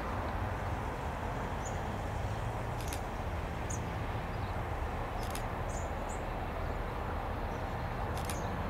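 Steady low rumble of a distant BL-class diesel-electric locomotive hauling a freight train downgrade, with short high bird chirps every second or two.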